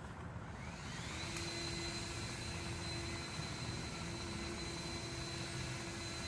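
A leaf blower running, revving up about a second in and then holding a steady high whine.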